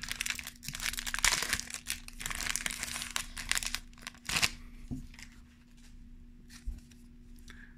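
Foil booster-pack wrapper crinkling and tearing as it is ripped open by hand, for about the first four and a half seconds. After that it goes much quieter, with only a few light clicks.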